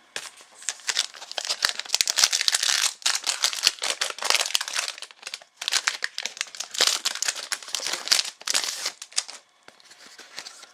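Trading card pack wrapper crinkling and being torn open, a dense crackle in several spells over about nine seconds that dies down near the end.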